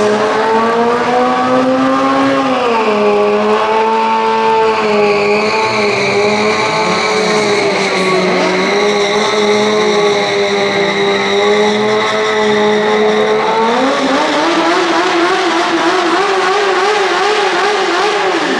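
Sportbike engine held at high revs in one long, steady high-pitched drone while the bike spins the rear tyre around a standing person. The pitch sags and wobbles a little, rises again about fourteen seconds in, and cuts off at the end.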